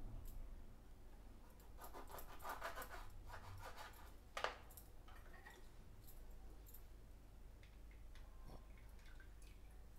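A kitchen knife cutting through a lemon on a wooden chopping board, a rough scraping crunch, ending in one sharp knock of the blade on the board about four seconds in. After it come a few faint small clicks.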